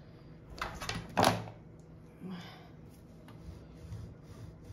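Hands working on an opened overlock sewing machine's mechanism: a few short rustles and knocks, the loudest about a second in.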